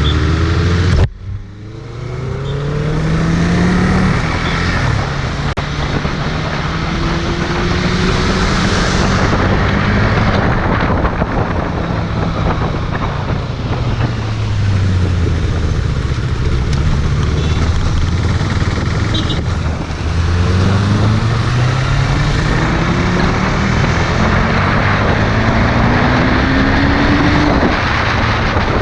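Motorcycle engine under way on the road, pulling up through the gears with its pitch climbing, easing off and dropping near the middle, then accelerating again. Steady road and wind noise runs underneath.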